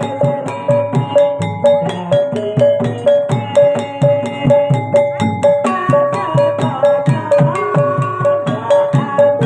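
Javanese jaranan (kuda lumping) gamelan accompaniment. Drums and bright metallophone or gong strokes keep a steady beat of about two to three a second under a sustained melody line that moves to new pitches about halfway through.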